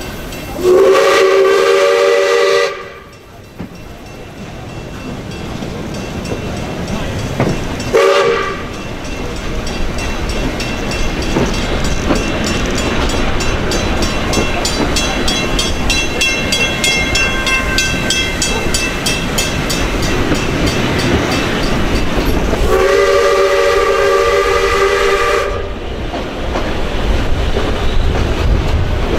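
Steam whistle of South Australian Railways steam locomotive 621, sounding three times with several notes at once: a blast of about two seconds just after the start, a short toot about eight seconds in, and a longer blast of about three seconds near the end. Between the blasts, the steady running noise and clickety-clack of the train on the rails.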